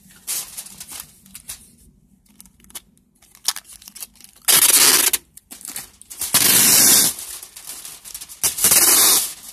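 Tape pulled off the roll in three loud rips of about half a second each, the first about four and a half seconds in, while aluminium foil crinkles and rustles under the hand pressing the tape down.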